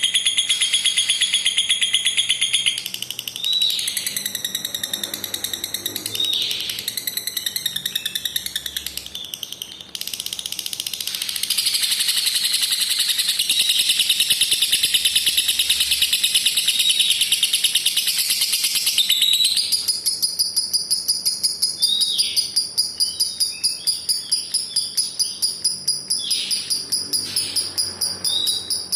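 Lovebird's long ngekek chatter: a very fast, high trill held for many seconds at a time, shifting in pitch and strength about three seconds in, around ten seconds in and again near twenty seconds, with short sharp chirps between the trills.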